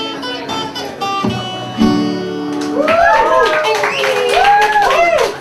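Acoustic guitar picking the last notes of a song, ending on a ringing chord about two seconds in. From about three seconds in, several voices whoop with rising-and-falling calls over sharp clapping, as an audience cheers.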